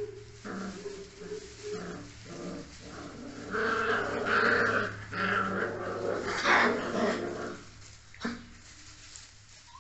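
Spanish Mastiff puppies growling at each other as they play-fight, louder and busier in the middle stretch.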